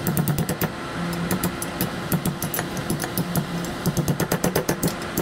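Hammer striking the steel end of a tulip bulb auger again and again, bending it into place for tack welding. The blows are quick and uneven, speeding up to about five a second near the end, with a steady low hum underneath.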